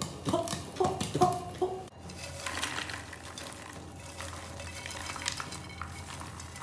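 Freshly popped popcorn poured out of a metal pot into a bowl: a steady rustle of kernels with many light clicks and taps, from about two seconds in.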